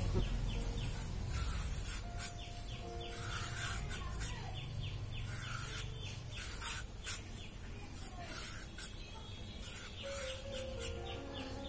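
Birds chirping in rapid short, falling calls over a steady high insect-like hiss, with a few sharp clicks in between.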